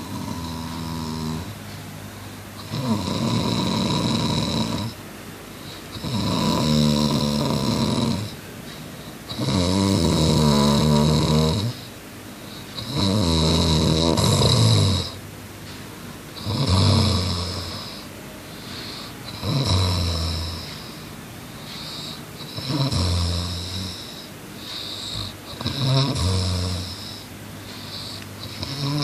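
A boy snoring in his sleep, one snore about every three seconds, each lasting one to two and a half seconds.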